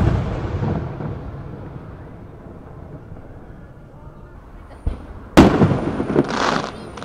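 Aerial fireworks shells bursting: the rumble of a large burst echoes away over the first second or so, a small pop comes just before five seconds in, and a loud burst about five and a half seconds in is followed by about a second and a half of crackle.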